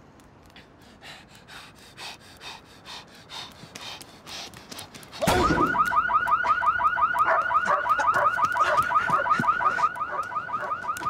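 Faint rhythmic pulses, about three a second, grow louder. About five seconds in, an electronic alarm starts suddenly, a loud, fast-repeating warble of rising whoops.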